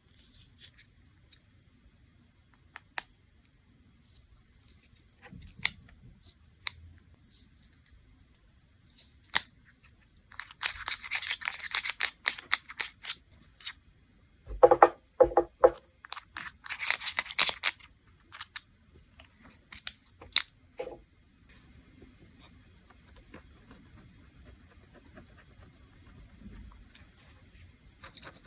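Small nail-care tools worked on fingernails: scattered sharp clicks and taps, with two stretches of rasping scraping about ten and seventeen seconds in.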